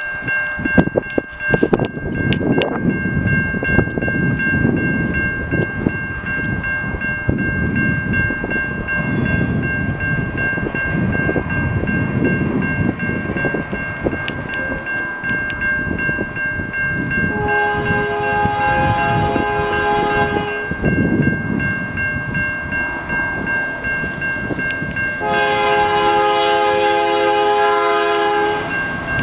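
Air horn of an approaching CN freight locomotive sounding two long blasts for the level crossing, each about three seconds, the first a little past halfway and the second near the end. Under them run a steady high-pitched tone and an uneven low rumble.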